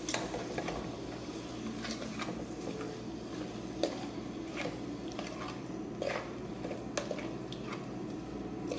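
Meat cooking in a pot on the stove, a steady sizzling with scattered light clicks and crackles; the meat is starting to catch and burn on the bottom of the pot.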